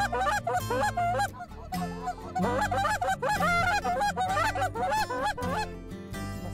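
Canada goose honks and clucks in a rapid, overlapping stream of short rising-and-falling calls.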